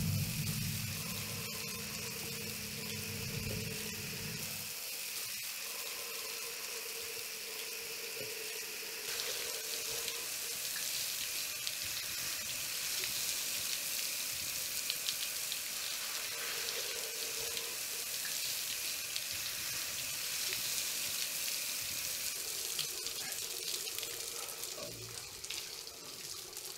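Shower running steadily, an even hiss of spraying water that grows a little louder about nine seconds in. A low hum beneath it stops about five seconds in.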